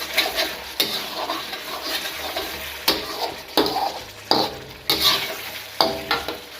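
Lamb karahi frying in thick gravy in a karahi pan, with a sizzle throughout and a spoon scraping and knocking against the pan about ten times at uneven intervals as it is stirred.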